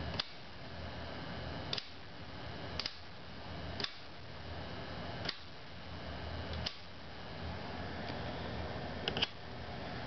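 Selector switch on a home-made transformer voltage regulator clicked up one position at a time: about seven sharp clicks a second or so apart, the last a quick double near the end. Under them runs a faint steady transformer hum.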